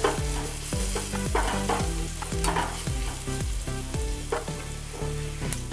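Chopped garlic sizzling as it fries in hot oil in a pan, being stirred.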